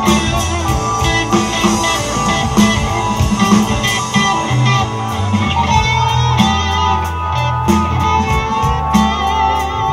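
Live band playing an instrumental passage: electric guitar over bass guitar and drums, with regular cymbal strokes.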